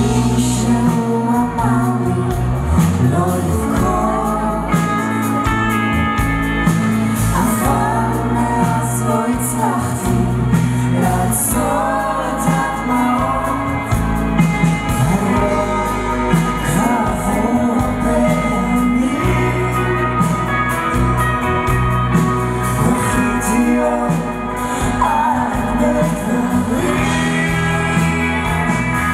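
Live band playing a song: a male lead vocal over acoustic and electric guitars and drums.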